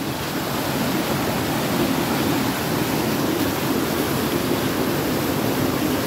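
A small creek waterfall cascading over rock into a pool, a steady rushing of water.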